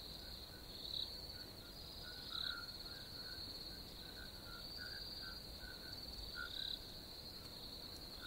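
Faint crickets chirping: a steady high trill with louder chirps now and then, used as a night-time sound-effect bed.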